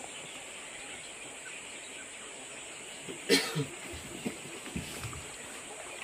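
Steady background hiss with a thin, constant high whine. About three seconds in there is one sharp knock, the loudest sound, followed by a few dull thumps over the next two seconds.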